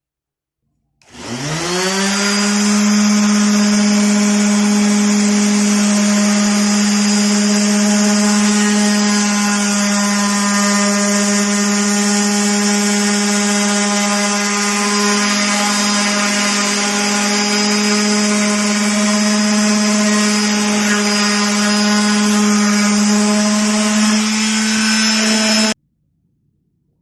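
CNC router spindle spinning up about a second in to a steady high-pitched whine, then running with a hiss from the bit cutting wood. The sound stops abruptly near the end.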